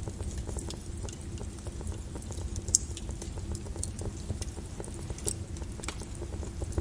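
Fire in a fireplace crackling: a steady low rumble of flames with scattered sharp pops, the loudest about three seconds in and another a little past five seconds.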